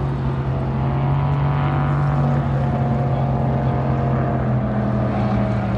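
Racing powerboat's engine running at speed across the river, a steady drone whose pitch drifts slightly.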